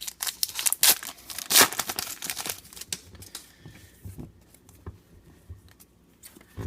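Trading card pack wrapper crinkling and tearing as it is opened, loudest in the first three seconds, then fainter scattered clicks as the cards are handled.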